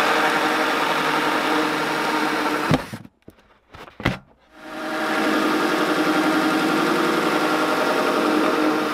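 Power drill spinning a 1.5-inch hole saw through the thin plastic wall of a one-gallon vinegar jug, at a steady speed. It runs for about three seconds, stops, blips briefly around four seconds in, then runs steadily again for the second hole.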